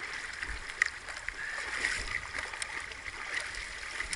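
Shallow stream water running and rippling steadily, with a few brief sharp ticks scattered through it.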